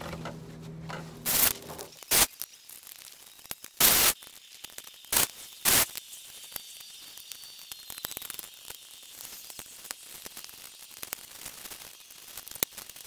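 Pole pruner cutting overhead in vines and thin wood: five short, sharp cuts in the first six seconds, the one near four seconds the longest, then faint rustling and small clicks.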